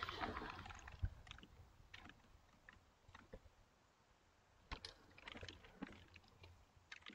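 Faint typing on a computer keyboard: scattered single keystrokes, a sharper tap about a second in, and a quicker run of keystrokes about five seconds in. It opens with a brief rush of noise.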